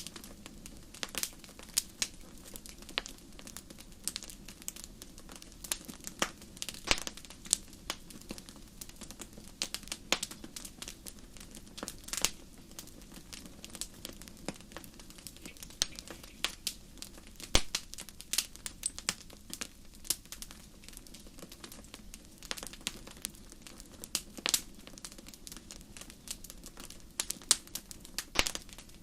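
Wood fire crackling: irregular sharp pops and snaps over a steady low rush of burning.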